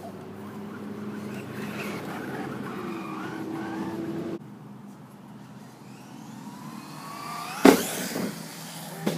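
Traxxas Slash RC car's motor whining and rising steadily in pitch as it accelerates, then a loud sharp bang about three-quarters of the way in as it hits the ramp or lands, with a smaller knock near the end.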